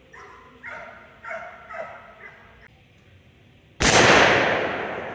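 A single loud gunshot about four seconds in, with a long echoing tail that fades slowly.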